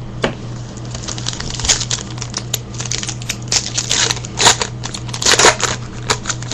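Trading cards being handled and flipped through by hand: irregular light clicks and flicks over a steady low hum.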